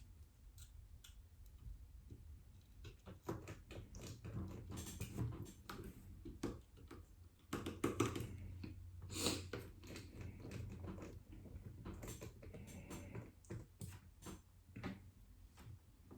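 Irregular small clicks and taps of hand tools and small device parts being handled on a workbench, a few sharper ones about halfway through, over a faint steady low hum.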